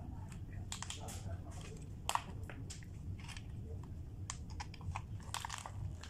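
Scattered plastic clicks and scrapes as a red manual call point is handled and pushed into its wall box, with one sharper click about two seconds in.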